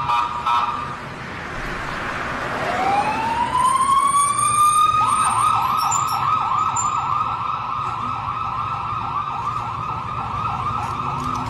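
Ambulance siren sounding: a rising wail, then about halfway through it switches to a fast warbling yelp.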